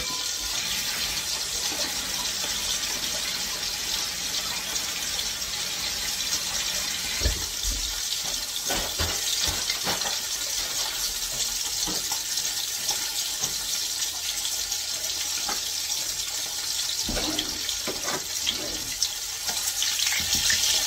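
Floured bacaladillas (blue whiting) frying in hot oil in a pan: a steady sizzle, with a few dull knocks around the middle and again near the end.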